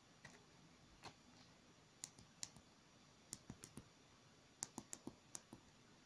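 Tactile push-button switches (12x12 mm, soldered on a perfboard) being pressed, giving short, sharp clicks in several quick runs from about two seconds in.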